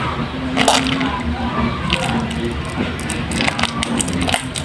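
Soaked, mushy bar soap being squeezed and lathered by hand, with wet squishing and irregular crackling clicks.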